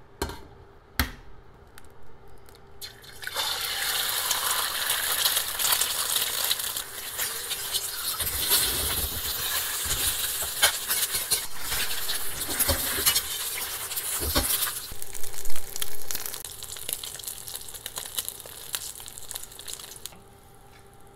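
Two sharp knocks, then an egg sizzling loudly in the hot carbon steel wok, with scattered clicks of a spatula against the pan. The sizzling drops away near the end.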